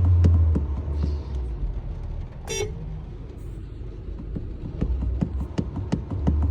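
Honda HR-V's horn giving one short beep about two and a half seconds in, over a run of light clicks at about four a second and a low rumble that drops away in the middle.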